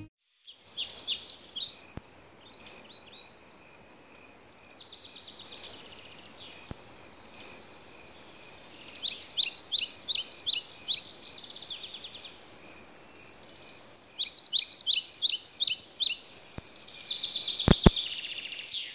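Birds singing: runs of quick, high chirps at about five a second, coming in bursts, over a faint steady high tone. Two sharp clicks near the end.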